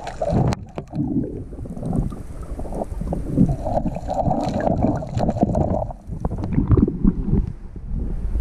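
Underwater sound through an action camera: muffled low water rumble and sloshing with scattered clicks and knocks. Near the end the camera breaks the surface and the sound opens up into hissing wind and water.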